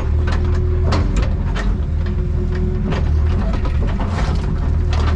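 Excavator diesel engine running under load with a steady hydraulic whine, over many sharp cracks and snaps of wood as trees and branches are broken.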